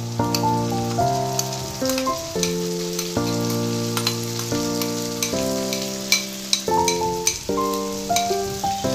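Marinated small prawns sizzling in hot oil in a wok as they are scraped in from a glass bowl, with sharp clicks of the spoon against the bowl and pan. Soft background keyboard music with changing chords plays throughout.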